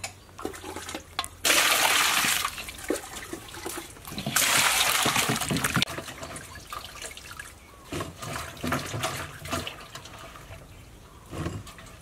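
Hands washing in water in a large stainless steel bowl: two loud rushes of water about a second and a half and four and a half seconds in, then smaller splashes and sloshing.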